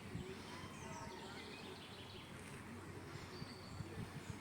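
Quiet outdoor park ambience: small birds chirping and twittering in short calls over a steady low background hum, with a few faint low knocks.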